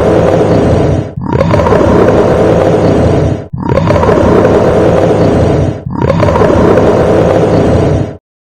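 Werewolf growl-and-roar sound effect: a deep, rough, loud roar played as a loop, the same roar starting over about every two and a half seconds with a short break between repeats.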